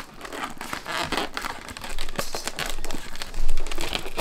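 Foil (Mylar) balloon crinkling and crackling as it is handled and its neck is pushed onto a plastic balloon stick, in irregular crinkles with a louder rustle about three and a half seconds in.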